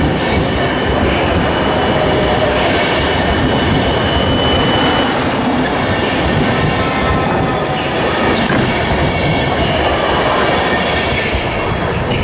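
Passenger train coaches rolling past along the platform: a steady rumble of steel wheels on rail, with thin, high wheel squeals coming and going.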